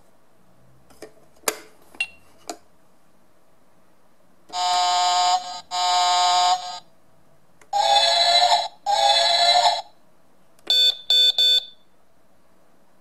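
A few plastic clicks as the page of a toddler's electronic sound book is turned, then the book's small speaker plays vehicle sounds: two long ship's horn blasts, two train whistle toots and three short car horn beeps.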